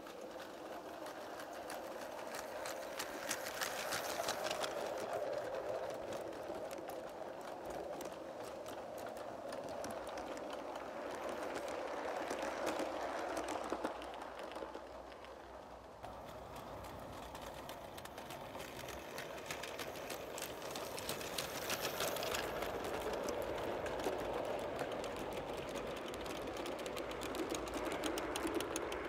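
O gauge coarse scale model train running on a garden track: a rapid clatter of wheels over the rail joints over a steady running hum. It swells louder several times, most of all as the coaches pass close by near the end.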